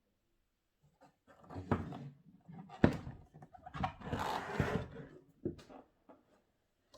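Handling noise from the plastic aerobic step and its parts: a run of knocks and clatter, sharpest about three seconds in, with a rustle around the fourth and fifth seconds.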